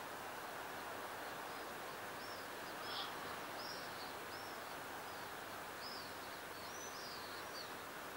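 Steady soft wash of the sea, with a bird giving a run of short, high chirping calls, one a little louder about three seconds in.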